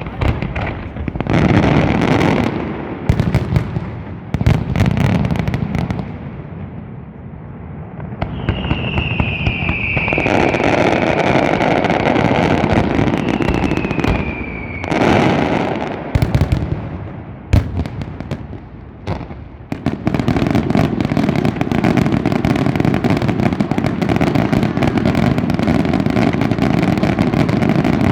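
Fireworks display: shells bursting with sharp bangs, two whistling rockets that fall in pitch around the middle, then a dense continuous barrage of rapid bangs and crackling from about two-thirds in.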